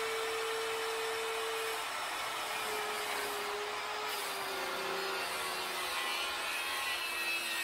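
Handheld circular saw running steadily while it cuts a long bevel along the edge of a salvaged cypress tabletop. The motor tone drops slightly in pitch about halfway through as the blade takes load.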